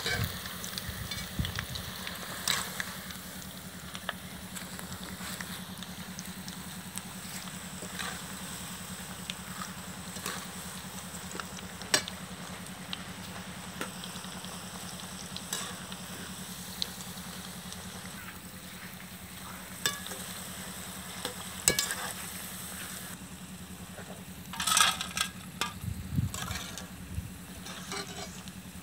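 Battered banana flower pakoda deep-frying in hot oil in a large aluminium kadai, a steady sizzle. A wire spider skimmer stirs the pieces and now and then clinks and scrapes against the pan, most busily about 25 seconds in.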